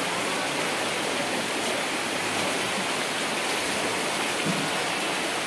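Floodwater after heavy rain rushing steadily.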